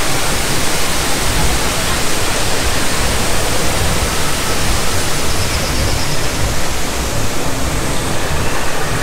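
Steady rushing noise with a fluttering low rumble beneath it.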